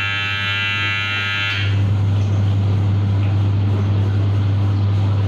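Electronic timer buzzer on a three-deck baking oven sounding continuously, then cut off about a second and a half in, signalling that the bake time is up. A steady low hum and rushing noise continue underneath and grow louder once the buzzer stops.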